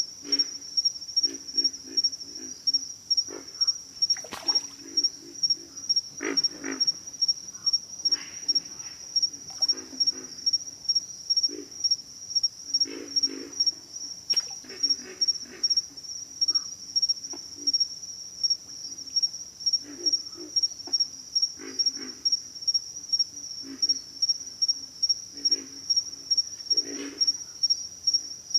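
Pig frogs grunting: short, low, pig-like croaks repeated every second or two at irregular intervals. A steady, high, pulsing insect chorus runs underneath.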